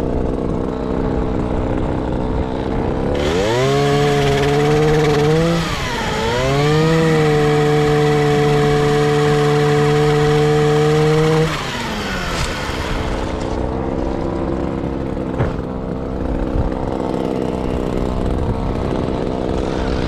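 Two-stroke gas pole saw idling, then revving up to full throttle about three seconds in. It dips briefly and runs flat out while the chain cuts a tree branch, then drops back to idle a little past the middle.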